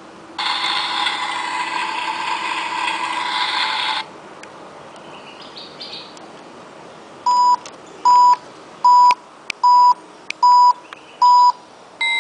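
Mini Tefal toy electronic kitchen's sound effects from its small speaker. A harsh, hiss-like electronic sound plays for about three and a half seconds after a button is pressed. Several seconds later come six short, even beeps, and a higher-pitched beep begins right at the end.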